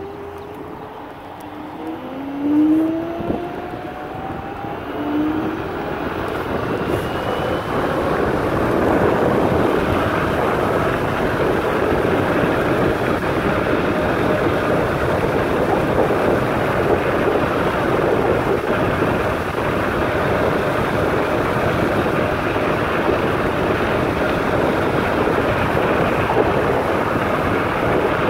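Steady rushing noise of a vehicle in motion, with wind on the microphone, building over the first several seconds and then holding level. A few short gliding tones sound over it in the first six seconds.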